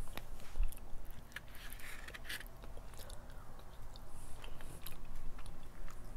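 Close-up chewing of a spoonful of red beans and rice, with scattered short clicks.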